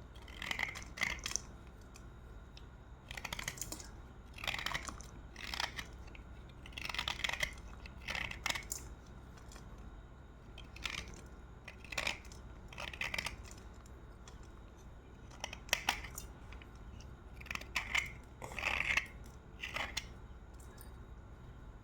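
Slate pencils being bitten and chewed close to the microphone: short clusters of crunching, irregularly spaced about every one to two seconds.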